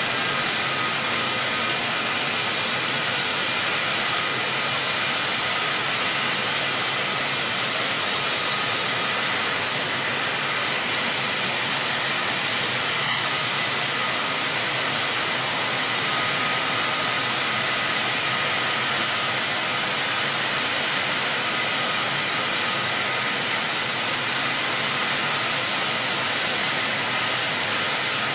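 Turbofan jet engines of Air Force One, a Boeing VC-25A (747), running on the ground: a steady, even rush of noise with a high, thin turbine whine over it.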